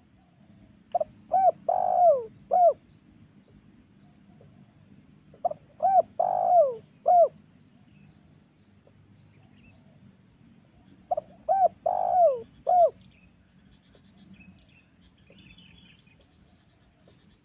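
Spotted dove (tekukur) cooing, three phrases about five seconds apart, each a few short coos around one longer coo that falls in pitch. This is the dove's lure call, the song used to draw wild spotted doves in.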